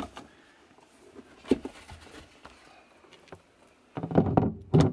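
Mostly quiet with a single sharp knock about a second and a half in; near the end, a loud run of knocks and rubbing as a camper galley's cabinet face panel is set in place over its cubby in the plywood cabinet.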